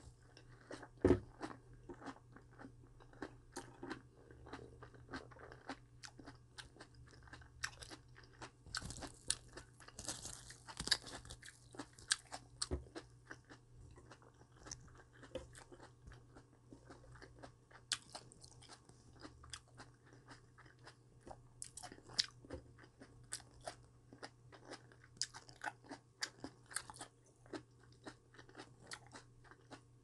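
Close-miked crunchy chewing and biting of a cabbage-leaf wrap with perilla leaf and boiled potato: many irregular crisp crunches, with a longer crackly stretch of crunching about ten seconds in. A faint steady hum sits underneath.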